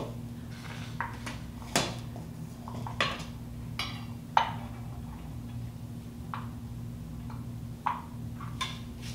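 A small metal cup clinking against a steel bowl and the metal hopper of a hand-cranked grain mill as corn kernels are scooped up and poured in: scattered light clinks and taps, with a few sharper ones.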